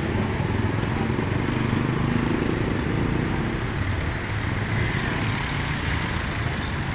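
Steady low rumble of a vehicle engine running, with street noise.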